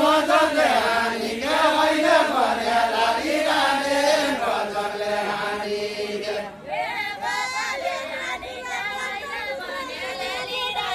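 A group of men singing a Deuda folk song together, in a chant-like unison. The singing dips briefly about six and a half seconds in, then a new sung phrase starts.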